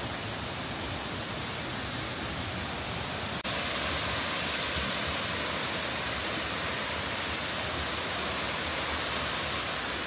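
Loud, steady rush of falling water from Tsuzumi-ga-taki, the 'drum' waterfall of the Nunobiki Falls. About three and a half seconds in it breaks off for an instant and comes back a little louder and hissier.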